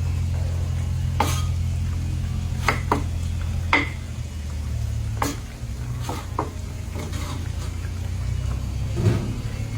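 Cooking utensil clinking and scraping against a pan while stirring frying food, a sharp knock every second or so, over a steady low hum.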